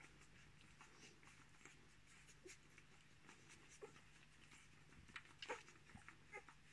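Ten-day-old Miniature Australian Shepherd puppies nursing on their mother: faint wet sucking and smacking clicks, with a few small puppy squeaks in the second half.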